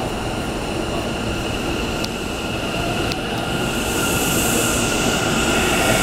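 Kintetsu electric train running along the platform: a steady rumble with a high whine, two faint clicks, and a hiss that rises in the treble from about halfway through.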